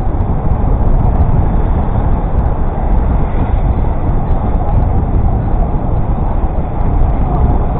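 Wind buffeting the microphone during a ride on a Brompton folding bike, a loud steady low rumble mixed with the noise of passing road traffic.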